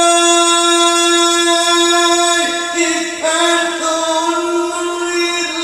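A man's voice in melodic Arabic recitation, sung into a microphone, holding one long note. About two and a half seconds in it breaks into a short ornamented turn, then settles on a held note again.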